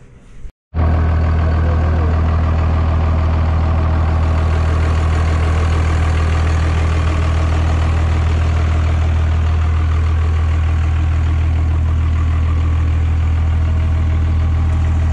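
Cummins 12-valve diesel engine in a Dodge Ram idling steadily, with a deep, even hum.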